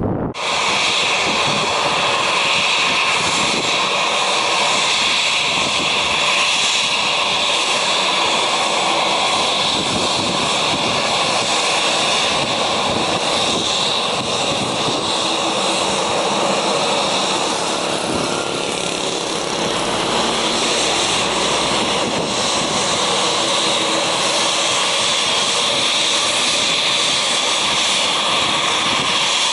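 Turbofan engines of an Embraer E195 airliner running close by as it taxis on the runway. The jet whine is loud and steady, with several high tones over a broad hiss.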